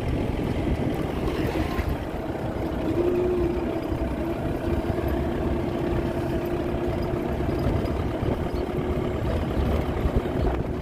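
Safari jeep driving along, its engine running at a steady note over a low rumble.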